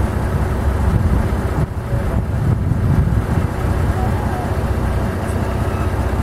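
A loud, steady low rumble.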